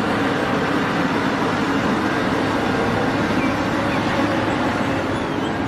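Caterpillar 6015B hydraulic mining excavator running steadily while tipping a bucket of sand into an articulated dump truck: a constant diesel engine hum under a dense rushing noise.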